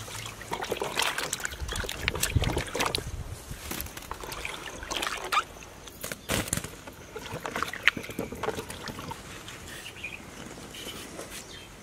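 Hands washing potatoes in a plastic tub of water: irregular splashing and sloshing, with wet potatoes knocking together and a few sharp knocks as they drop into a wicker basket.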